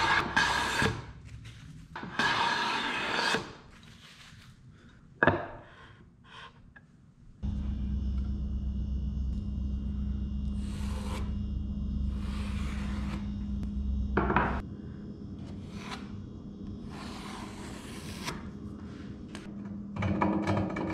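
Bench plane taking shavings off the edge of a cherry board, two long strokes, followed by quiet tool handling and a stretch with a steady hum. Near the end a handsaw starts cutting wood in quick back-and-forth strokes.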